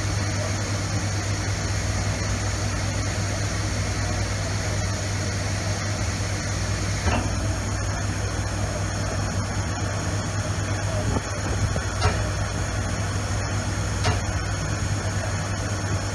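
Schutte 305 Linear CNC tool and cutter grinder running: a steady hum and hiss from the spinning wheel head, with a few short clicks in the second half.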